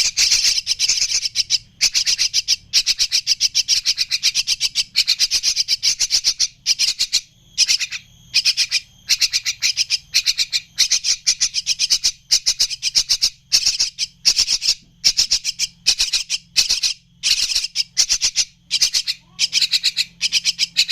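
Young Javan mynas calling: a fast, unbroken chatter of harsh, rasping calls, many a second, in runs separated by brief pauses.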